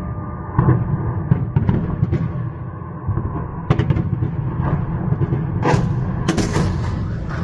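Distant explosions: a string of sharp, irregular bangs and booms echoing between tall buildings, the loudest and longest near the end, over a constant low rumble.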